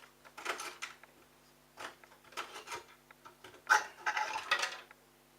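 Hard plastic clattering and scraping as a washing machine's pump filter and its housing are handled, in several short bursts, the loudest about four seconds in.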